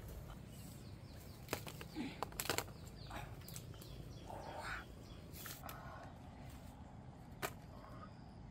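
Leafy branches of a tamarind tree being pulled and snapped by hand: rustling foliage with sharp twig snaps, a quick cluster about two seconds in and single ones later.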